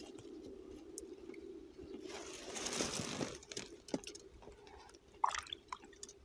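Plastic tarpaulin rustling and crinkling as it is pulled back from a small tarp-lined pool of live baitfish, loudest about two to three seconds in. Near the end a hand splashes into the water, groping for a baitfish.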